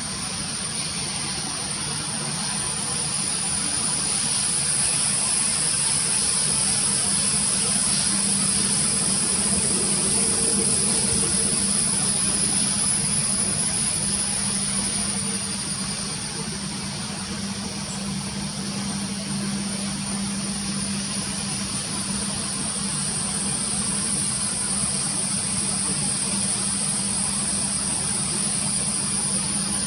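Boeing 737 MAX airliner's jet engines running with a steady rushing noise and a high whine, swelling slightly and easing back a little about halfway through.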